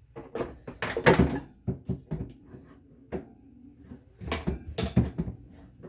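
Irregular knocking and clattering of plastic refrigerator trays being handled and fitted back into the fridge, in two bunches of knocks.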